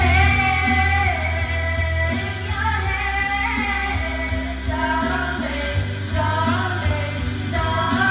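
Women singing karaoke together into handheld microphones over a music backing track with a steady bass line.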